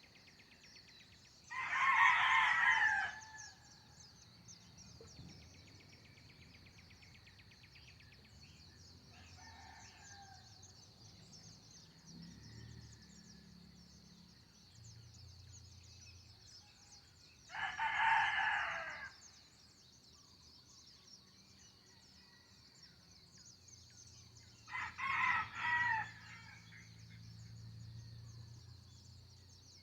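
Rooster crowing three times: near the start, about 18 seconds in, and a broken crow about 25 seconds in. A steady high-pitched trill runs underneath.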